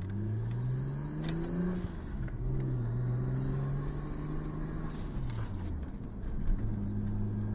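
Nissan Skyline's engine heard from inside the cabin as the car is driven hard. The revs climb, drop sharply about two seconds in as a gear changes, hold steady, then fall away near the end.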